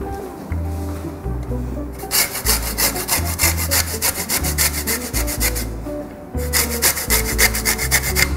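A lime rubbed up and down the fine face of a metal box grater to zest it, in rapid repeated strokes several times a second. There are two runs, from about two seconds in to about five and a half seconds, then again from about six and a half seconds on. Background music with a low bass line plays underneath.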